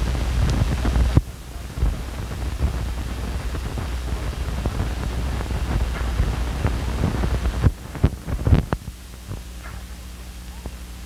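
Worn optical film soundtrack noise: hiss and crackle over a low rumble that drops abruptly about a second in, a cluster of loud clicks near the eight-second mark, then a quieter steady mains hum.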